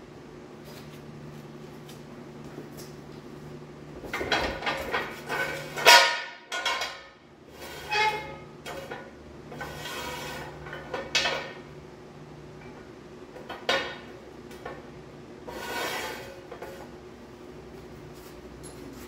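Steel jack stand being handled and adjusted: a series of metallic clanks and knocks with a ringing tone, the loudest about six seconds in, over a steady low hum.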